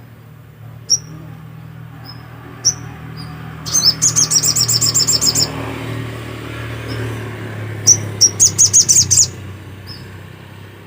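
Little spiderhunter (sogok ontong) calling: a couple of single sharp high chirps, then two rapid trills of high notes, each lasting about a second and a half. A steady low hum runs underneath.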